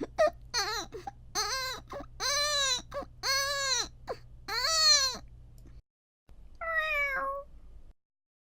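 A human voice imitating a soft baby cry: a string of short, high wails, each rising then falling, over the first five seconds. After a brief break comes a single vocal imitation of a cat's mew, falling in pitch.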